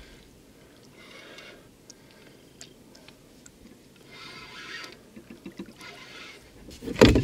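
Faint water splashing as a hooked pike is drawn across the surface to a rowboat, with a few light ticks in between, and a louder splash near the end as the fish reaches the landing net.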